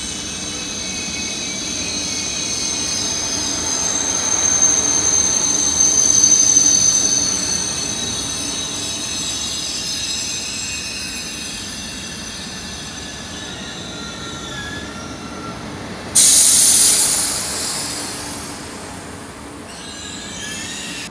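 SBB ETR 610 tilting train rolling away along the platform track, its wheels squealing in several high steady tones that swell a few seconds in and fade as it draws off. Late on, a sudden loud hiss breaks in and dies away over a couple of seconds.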